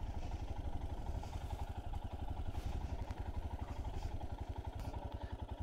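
Royal Enfield Himalayan 411's single-cylinder engine running steadily under way on a dirt trail, a rapid even beat of firing pulses.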